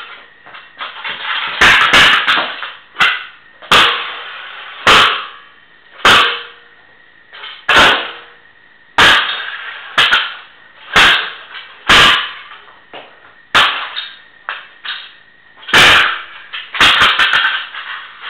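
Razor Pro scooter deck being slammed repeatedly onto a concrete floor: loud metal clanks about once a second, each ringing briefly.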